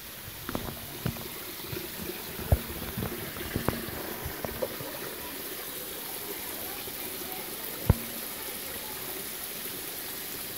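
Steady rush of a thin waterfall spilling down a rock face onto boulders. Scattered sharp knocks and clicks in the first half, and one louder knock near eight seconds.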